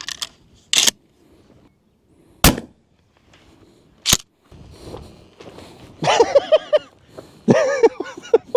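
A Remington 870 tactical 12-gauge pump shotgun fires a single round of 2¾-inch 00 buckshot, one sharp blast about two and a half seconds in, followed by a sharp click. There are shorter sharp sounds just before the shot.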